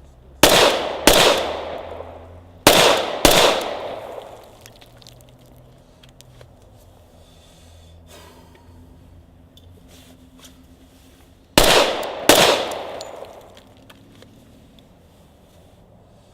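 Glock 21 Gen 4 .45 ACP pistol fired in controlled pairs: three pairs of shots, the two shots in each pair about half a second apart, each shot echoing briefly. The first two pairs come close together, and the third comes after a pause of about eight seconds.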